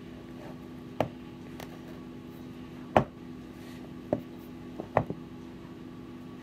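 Bread dough being worked by hand in a large flour-dusted mixing bowl: about six short, dull knocks at irregular intervals as the dough and bowl are pushed around, the loudest about three seconds in, over a steady low hum.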